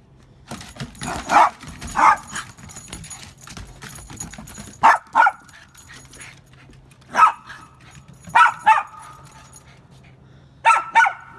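A dog barking in short, sharp barks, often two in quick succession, about nine in all, with scuffling clicks between them in the first few seconds.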